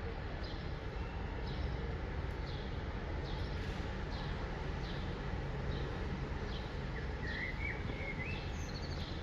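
Small songbird giving short, high, falling chirps about once a second, with a brief wavering phrase near the end, over a steady low background rumble.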